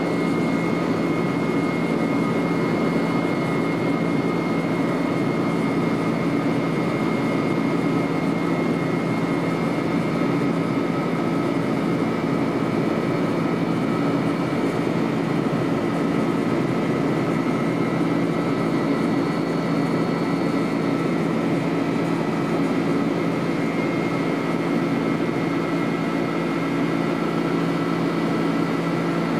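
Cabin noise of a McDonnell Douglas MD-11 airliner in cruise flight, heard from inside the cabin: a steady jet engine and airflow rush with a constant low hum and a few faint steady whines.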